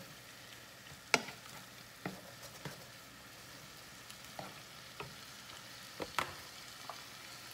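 Chopped Dominican salami, peppers, sofrito and garlic sizzling in a frying pan while a spoon stirs them. The spoon knocks against the pan several times, the sharpest knock about a second in.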